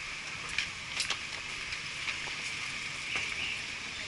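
Street traffic ambience: a steady hiss of passing vehicles, with a few light, irregular taps about half a second, one second, two seconds and three seconds in.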